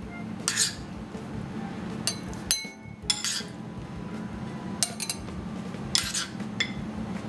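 Metal spoon clinking against stemmed wine glasses as mango cubes are dropped in: a series of light, irregular clinks, a few ringing briefly.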